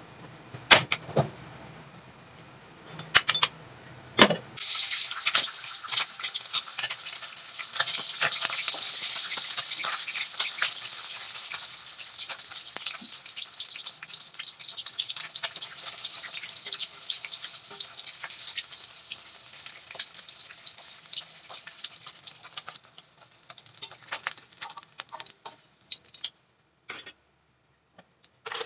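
Egg frying in hot oil in a wok: dense crackling and spitting of the oil sets in about four seconds in, after a few sharp knocks. It thins to scattered pops over the last few seconds.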